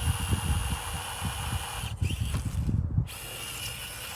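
Axial SCX24 Deadbolt micro crawler's small brushed electric motor and gears whining steadily as it drives, with irregular low rumbling for the first three seconds. The whine drops out briefly near three seconds in.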